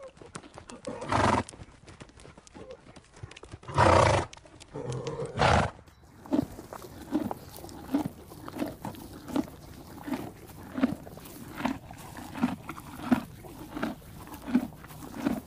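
Horses snorting: three short, loud blasts of breath in the first six seconds. Then come soft, regular thuds from a horse, about one every three-quarters of a second.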